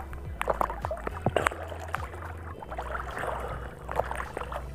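Sea water sloshing and splashing right at the microphone as someone moves through it, with many quick bubbly plops, several rising in pitch, over a steady low rumble.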